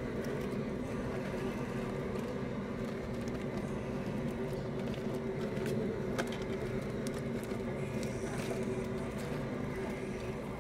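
Steady hum and rush of a propane cooking burner running, with a few light clicks and knocks as blue crabs are shifted around on the cooker.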